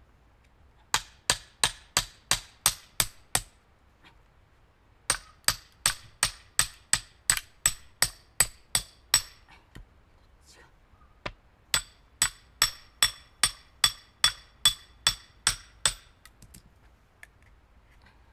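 Hammer tapping a steel firewood-splitting wedge into a log: three runs of quick light strikes, about three a second, each with a short metallic ring.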